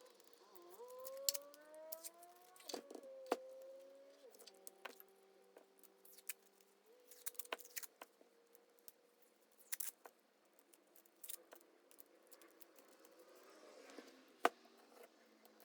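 Clicks, taps and small scrapes of hands and tools working on the casing and parts of a 48 V e-bike lithium-ion battery pack as it is pried apart. In the first few seconds there are squeaky, rising tones, then a few short held squeaks.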